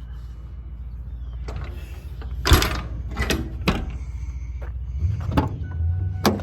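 A series of sharp metal clanks and thuds, the loudest about two and a half seconds in, typical of service-body compartment doors and latches on a work truck being opened and shut, over a low steady hum.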